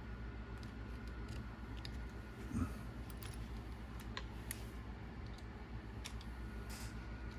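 Small parts and hand tools clicking and tapping as an RC car is worked on at the bench, with light irregular clicks and one soft thump about two and a half seconds in.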